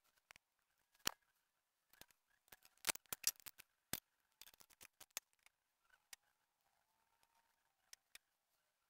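Faint, scattered metallic clicks and taps from a nut driver and small carburetor hardware as the carburetor is bolted back onto a Honda HS35 snowblower's engine. The clicks bunch together about three seconds in.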